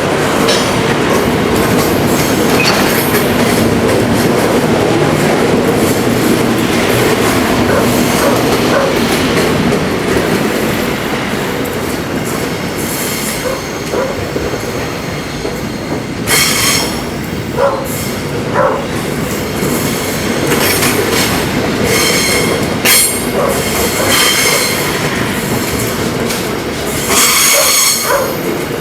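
Freight train rolling past with the steady rumble of steel wheels on the rails, and several high-pitched wheel squeals coming and going in the second half.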